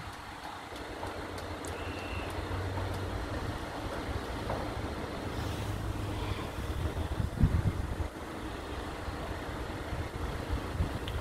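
Steady road-traffic noise with a low engine hum. A few low gusts of wind buffet the microphone about seven to eight seconds in.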